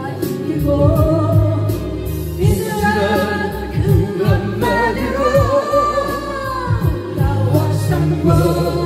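A man singing a slow Korean ballad into a karaoke microphone over the machine's backing track, which has a steady beat; he holds long notes that bend in pitch.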